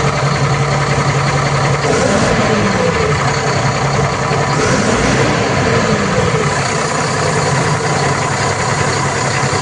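Tata Signa BS6 truck diesel engine idling, revved twice with the pitch rising and falling each time, over an air-like hiss. The hiss sounds like a pressure leak near the turbo, but the mechanic attributes it to a faulty ETV that needs replacing.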